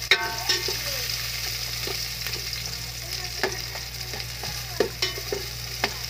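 Garlic, onion and ginger sizzling as they sauté in an aluminium pot, with a utensil scraping and clinking against the pot as it stirs at irregular intervals, over a steady low hum.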